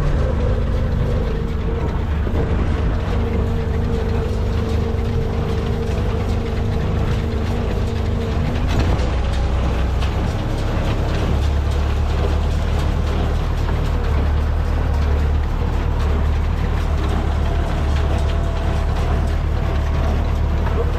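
Massey Ferguson 575 diesel tractor running under load with a New Holland 377 square baler working behind it, a steady engine drone over the rattle and knocking of the baler's mechanism. The engine's hum shifts in pitch about a third of the way through.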